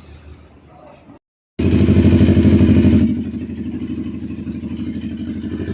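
CFMoto NK400 parallel-twin engine running through an Akrapovic muffler. It comes in suddenly about a second and a half in, loud at first, then settles to a lower, steady level with an even pulsing beat.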